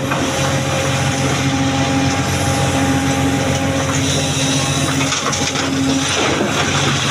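Heavy diesel engine running steadily with a held whine over the low engine hum, as an excavator loads boulders into a dump truck. A brief rush of scraping noise comes near the end.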